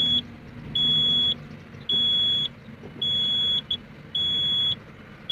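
Komatsu PW180 wheeled excavator's cab warning buzzer sounding a steady high-pitched beep, about half a second long, roughly once a second. It is the machine's fault alarm, which the uploader puts down to low brake oil pressure.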